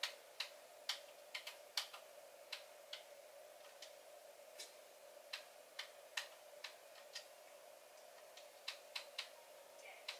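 Faint, irregular sharp clicks, about two a second, over a faint steady hum.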